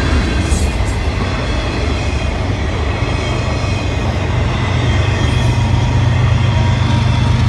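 Freight train autorack cars rolling past close by: a steady rumble of steel wheels on rail. From about halfway through, a low steady drone grows louder as a diesel locomotive in the train draws near.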